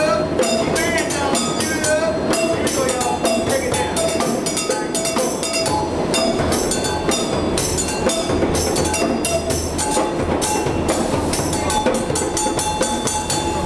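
Live percussion jam: a djembe played by hand in a steady fast rhythm, with drumsticks clattering on small metal pans and a hand-held wooden percussion instrument, over a few sustained tones.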